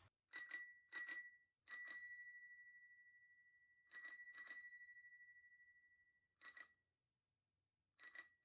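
A small bell ringing in quick double strikes, several times over, each strike ringing on and fading, one ringing for several seconds.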